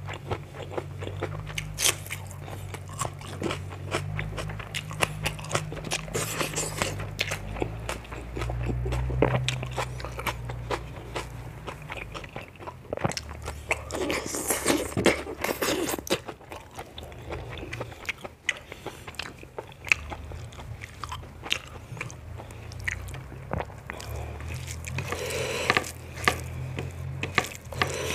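Close-miked eating sounds: a person chewing and biting mouthfuls of rice and leafy greens, with frequent crunches and many quick mouth clicks.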